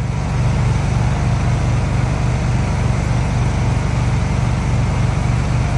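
Wheel Horse 522XI garden tractor engine idling steadily, with an even low pulsing.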